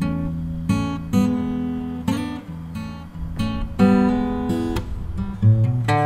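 Background music: acoustic guitar strumming chords, a fresh strum every half second to a second.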